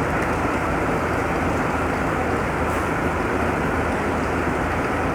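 Vehicle driving on a wet, flooded street: a steady rush of tyres and water with a low engine hum underneath.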